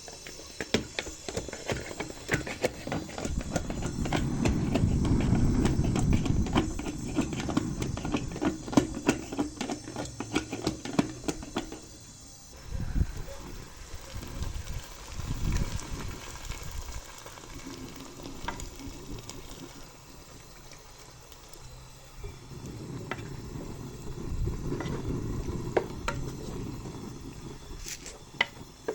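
Food sizzling in a pan while a utensil stirs and scrapes it, with many quick clicks of the utensil against the pan for the first dozen seconds, then slower, scattered knocks.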